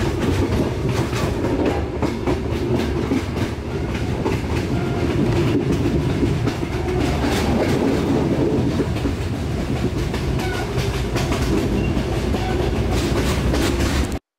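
Train running along the track, a steady rumble with wheels clattering over the rails; it cuts off suddenly near the end.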